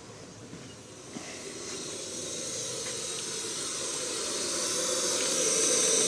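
Home-built pressure-fed kerosene burner, its tank pressurised to about 1.6 bar, hissing steadily while burning, growing louder from about a second in.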